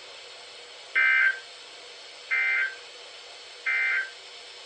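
NOAA Weather Radio SAME end-of-message signal: three identical short bursts of digital data tone, each under half a second, about a second apart, marking the end of the alert broadcast.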